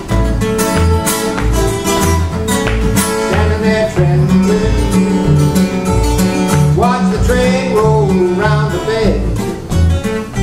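Two acoustic guitars playing an instrumental break: an alternating bass-note rhythm under a picked lead line, with gliding, bent notes around seven to nine seconds in.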